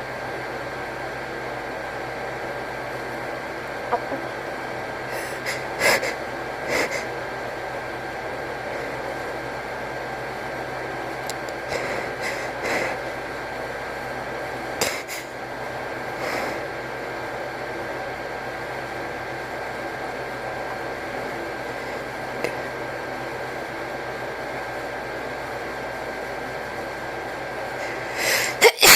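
A person's sneeze buildup: short sniffs and catching, gasping breaths every few seconds as a sneeze threatens but does not come, over a steady fan-like hum. A louder double burst of breath comes near the end.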